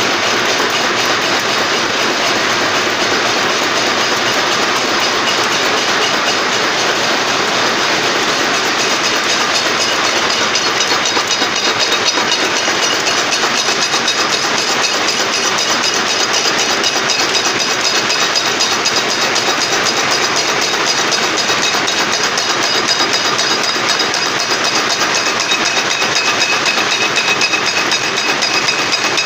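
Wire nail-making machine running: a loud, steady, rapid metallic clatter.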